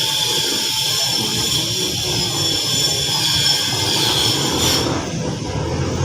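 Mercedes Vito van's engine running, a steady mechanical noise with a thin high whine over it; the highest hiss drops away near the end.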